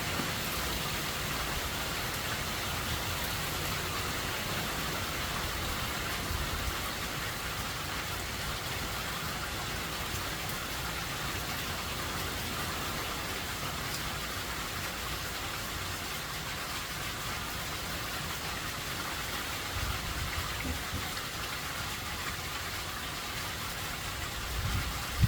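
Steady heavy rain from Hurricane Helene, an even hiss with no break. Brief low rumbles come in now and then, the loudest right at the end.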